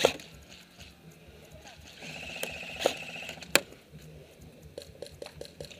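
Airsoft gunfire: a sharp crack at the very start, then about two seconds in a rapid burst of fire with two more sharp cracks, and a string of faint clicks near the end.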